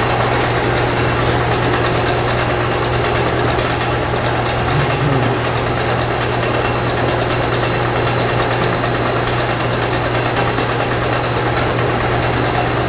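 Four-head cheese depositor running: a steady machine hum over a constant hiss, with no pauses.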